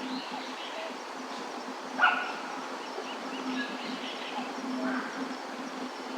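A dog barking: one sharp bark about two seconds in and a softer one near the end, over steady outdoor ambience with small bird chirps.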